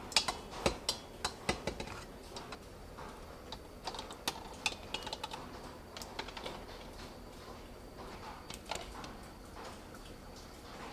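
Irregular sharp clicks and clinks of kitchen tongs and boiled eggs knocking against an egg rack and a stainless steel bowl as the eggs are moved into cold water. Some clinks leave a brief metallic ring. The clicks come thickest in the first two seconds and again around four to five seconds in.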